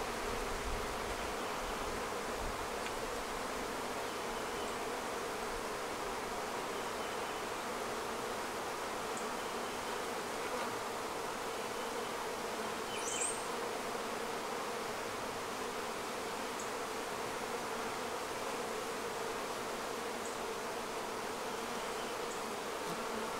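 Honeybee colony humming steadily at the open top of the hive. The hum is calm and quiet, which the beekeeper takes as a sign the bees are accepting a newly introduced queen.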